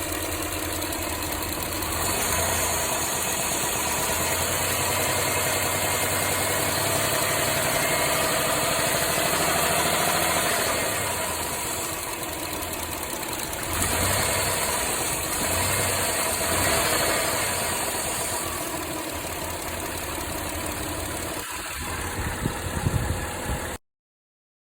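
Mitsubishi 6G72 3.0 V6 engine running with an intermittent knock. The knock comes more often as revs rise; oil pressure is stable, and the owner suspects a rod bearing but cannot rule out a hydraulic lifter or a piston pin. The sound cuts off abruptly shortly before the end.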